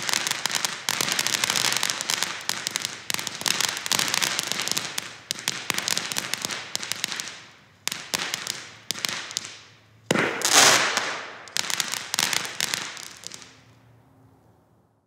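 Black Cat 100 Foot Fountain ground firework spraying sparks with a dense crackling hiss. About eight seconds in it begins to sputter in separate surges that each die away, the loudest about ten seconds in, and it fades out as the fountain burns out.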